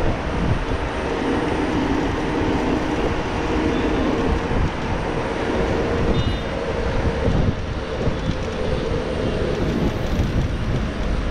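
Steady road noise of a Xiaomi Mi Pro 2 electric scooter being ridden through traffic: wind buffeting the microphone and tyre rumble, with the engines of cars and vans running close alongside.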